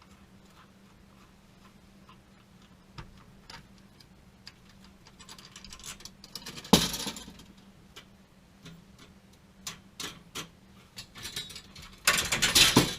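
Scattered clicks and clinks of tools and metal parts being handled, with one sharp knock about seven seconds in and a burst of rattling clatter near the end.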